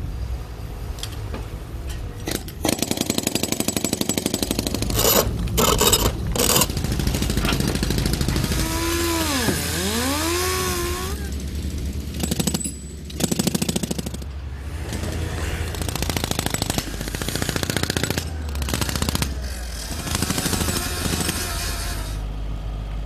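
Hand-held jackhammer hammering concrete pile heads in a fast, steady rattle of strokes, with a few brief stops. Around the middle a pitched tone sweeps down and back up.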